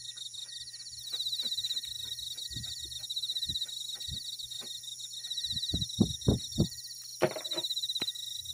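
Crickets chirring steadily in a fast, even trill, with a string of light knocks and taps through it and a few louder thumps about six seconds in.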